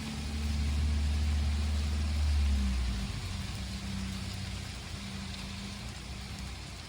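Steady rain hiss from a thunderstorm. For the first three seconds it is joined by a strong low rumble with a steady low hum, which then fades out.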